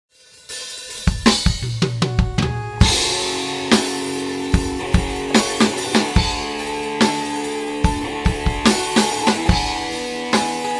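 Live dangdut band starting a song: a drum fill of quick hits about a second in, then from about three seconds the full band with keyboard, electric guitars and drums playing a steady beat.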